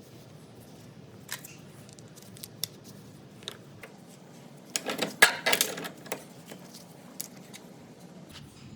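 Small metal parts of an air angle grinder clicking and clinking as they are handled: a few scattered clicks, then a short burst of rattling clinks about five seconds in.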